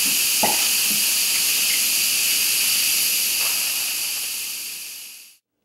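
Instant Pot electric pressure cooker letting steam out through its lid valve: a steady, high hiss that dies away about five seconds in. The cooker is still bleeding off pressure, so the lid is not yet safe to open.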